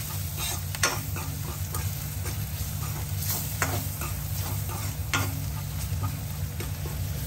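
A spoon stirring and scraping onion-tomato masala frying in oil in a kadai, with a low sizzle under it. The spoon clicks sharply against the pan a few times.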